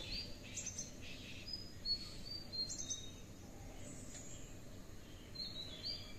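Faint birdsong: many short, high chirps and whistled notes from small birds, scattered through, over low steady background noise.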